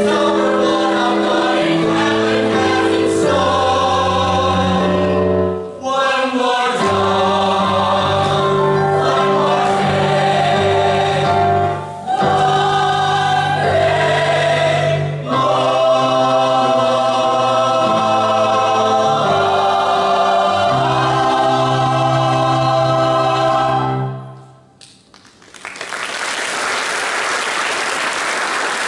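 Mixed choir of men and women singing full sustained chords, cutting off together about 24 seconds in. After a brief pause an audience applauds.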